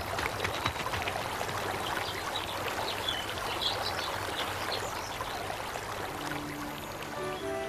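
Flowing stream or trickling water, a steady wash of water noise, with a few short high chirps in the middle. Music comes in near the end.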